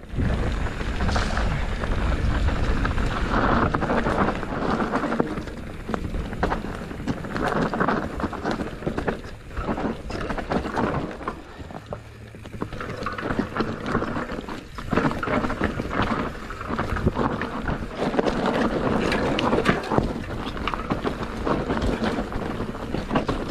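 Wind buffeting the microphone over a continuous rattle of tyres and frame jolting across a rough, bumpy trail during a fast ride.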